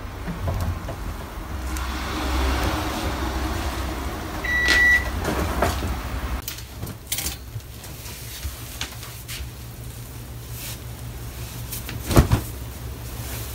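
Laundry being pulled out of a front-loading drum washer and hung on a drying rack: cloth rustling and handling noises over a low steady hum. A short electronic beep sounds about four and a half seconds in, and there are scattered clicks with one louder knock near the end.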